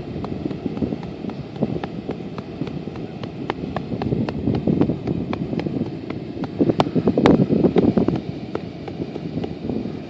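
Dry sand sliding down the steep face of a sand pile: a low, rushing noise full of small ticks, loudest about seven seconds in.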